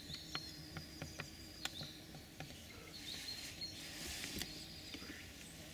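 Quiet woodland ambience: distant birds singing in thin high calls, with a few faint scattered clicks.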